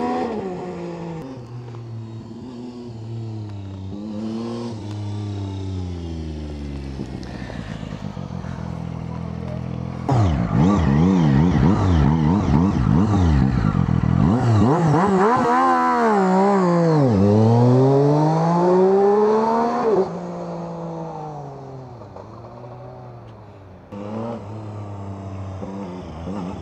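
Zontes 700RR sports motorcycle engine revving hard, its pitch climbing and dropping again and again as it accelerates and shifts. It gets louder about ten seconds in with quick rises and falls of revs, then winds down and runs quieter near the end.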